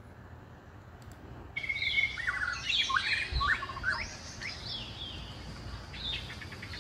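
Birds chirping, with many short rising and falling calls that overlap. They start suddenly about a second and a half in, after a moment of faint hiss.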